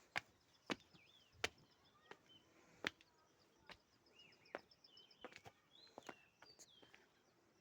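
Faint songbird chirps and short whistled calls, with a rapid high trill about three seconds in, over a dozen sharp clicks or snaps at uneven intervals.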